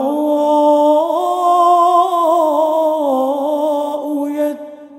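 A man's voice in melodic Quran recitation, holding one long, ornamented note on the drawn-out vowel of "wash-shu'ara'u" ("and the poets"). The pitch wavers and dips a little past the middle, then the note fades out about four and a half seconds in, and the next phrase begins at the very end.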